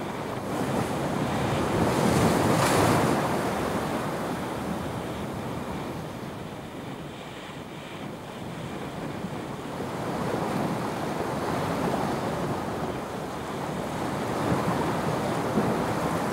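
Ocean surf breaking and surging against rocks, with wind noise on the microphone. The biggest wash comes about two seconds in, then the surf eases and swells again later.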